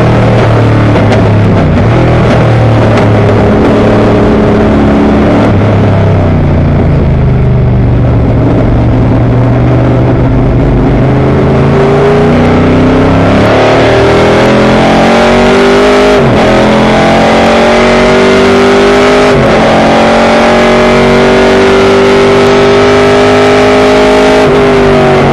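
Vintage race car's engine heard from inside the car under hard driving: the revs fall as it slows for a corner, then climb again through the gears with sharp dips at each upshift, and the revs drop once more near the end as it lifts off.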